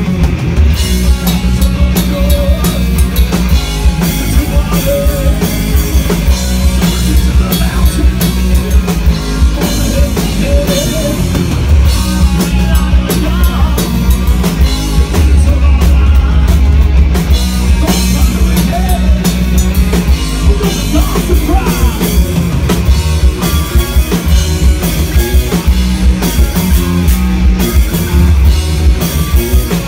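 Live rock band playing: electric guitars, bass guitar and a drum kit, loud and continuous.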